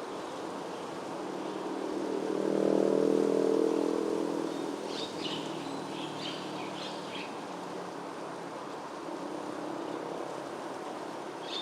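A motor vehicle passes, its engine sound swelling to a peak about three seconds in and fading away over a steady background hiss. A few short, high bird chirps follow a couple of seconds later.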